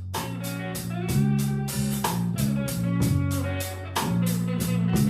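A blues band playing a slow blues instrumental passage between vocal lines: electric guitar over bass guitar and drums, with the drums keeping a steady beat of a few hits a second.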